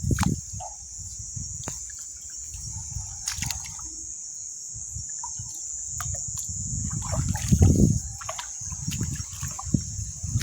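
Shallow water sloshing and trickling with low splashes, loudest about seven and a half seconds in, over a steady high-pitched chorus of night insects.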